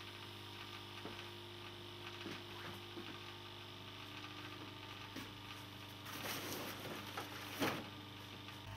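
Hot air rework station running as it heats up: a steady low hiss of blown air with a mains hum under it. A few faint clicks, and a louder rustle about six to eight seconds in.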